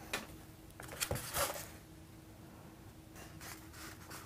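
Faint rustling and rubbing of hands handling a foam-board RC airplane wing panel, with a few brief scrapes about a second in and again a little after three seconds.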